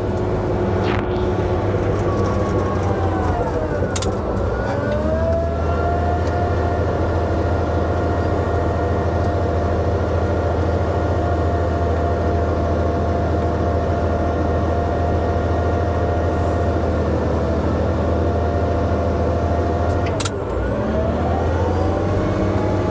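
Bulldozer's diesel engine running under load as it pushes chicken litter. The engine speed sags about four seconds in, climbs back and holds steady, then dips and recovers again near the end. A sharp click comes with each dip.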